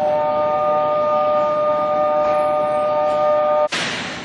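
Platform departure buzzer for a Nankai 8000-series train: a loud, steady chord of several pure tones that cuts off suddenly about three and a half seconds in. A short burst of air hiss follows, the pneumatic door gear of the train as departure nears.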